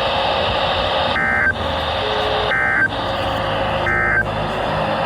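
Emergency Alert System end-of-message bursts: three short warbling digital data tones about 1.4 s apart, the first about a second in, over a steady radio hiss. They mark the end of the flash flood warning.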